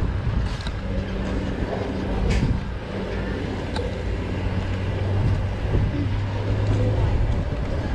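A van's engine running just ahead as a steady low hum, over street noise, with a few light clicks.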